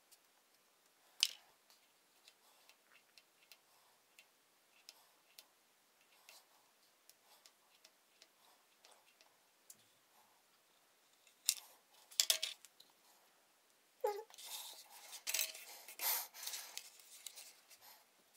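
Small scissors snipping thin printed paper, quiet and intermittent, with a few sharper snips about a second in and around twelve seconds in. From about fourteen seconds a denser stretch of paper crackling and rustling as the cut pieces are handled.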